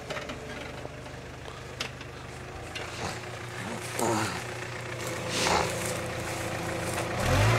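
Mitsubishi Pajero 4x4 engine idling steadily, then picking up with a deeper surge near the end as the next attempt at the obstacle begins.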